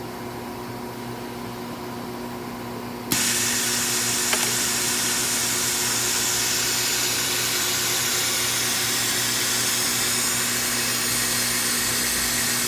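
A steady low electrical hum, then about three seconds in a machine switches on abruptly and runs with a loud, even rushing hiss. A single click comes about a second after the start-up.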